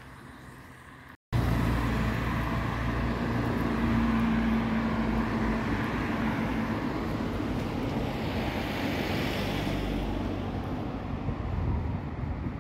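Road traffic picked up on a phone's own microphone: cars passing close by with engine and tyre noise. The sound cuts out for a moment about a second in, then comes back louder.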